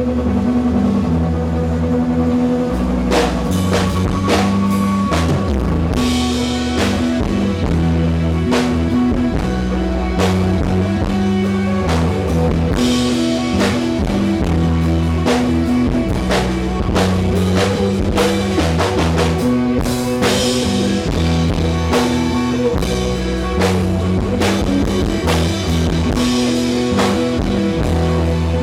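Live rock band playing, with a drum kit, electric guitar and bass guitar, recorded from the audience. Held bass notes change every couple of seconds under steady drumming, with cymbal crashes swelling a few times.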